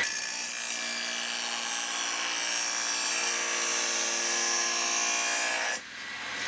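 Steel rail of a Stihl chainsaw bar being ground against the spinning abrasive wheel of a bar-dressing grinder: a steady, high grinding hiss over the machine's hum. It cuts off suddenly near the end as the bar is lifted off the wheel. The worn rail is being ground down to take out a dip and rolled-over edges.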